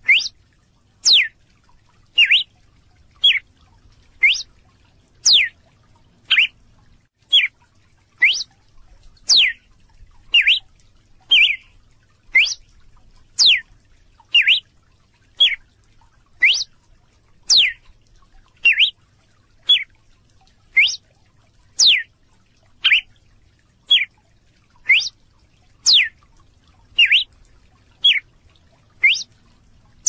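Red-cowled cardinal calling: a short, high, sweeping note repeated evenly about once a second.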